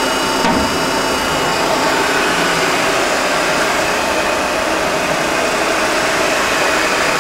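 Myford MG12-HA hydraulic cylindrical grinder running with its hydraulics on: a steady machine hum and hiss from the motors and hydraulic pump, with a faint whine.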